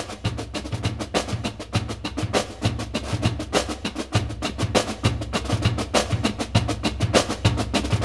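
Background music: a fast percussion rhythm of quick clicks over a deep pulsing bass.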